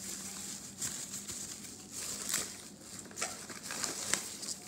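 Faint scattered rustles and light taps of a paper mailing envelope and packaging being handled, over a faint steady low hum.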